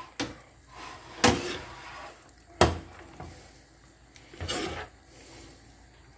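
Metal pasta server stirring fusilli in a steel frying pan, knocking against the pan three times with softer scraping and rubbing in between.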